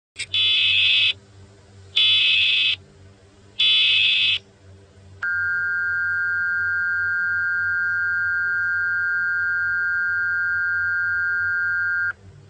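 Emergency Alert System tones: three short bursts of digital header data, then a steady two-tone attention signal held for about seven seconds that cuts off abruptly. Together they mark the start of a new emergency alert.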